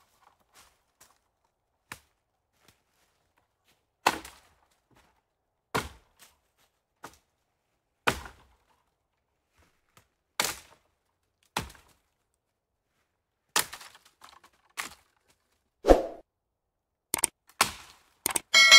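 A series of single sharp knocks, one every one to two seconds with silence between, the odd one a duller thud. Near the end come several quick clicks as an animated cursor clicks a subscribe button.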